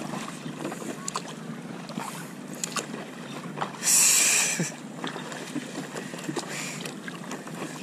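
Paddle strokes on an inflatable stand-up paddleboard: water splashing off the blade and lapping against the board's hull in light chop, with one louder splash about four seconds in.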